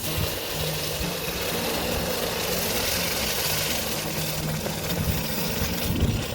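A steady, hissing, motor-like machine noise that starts abruptly and cuts off near the end, over background music.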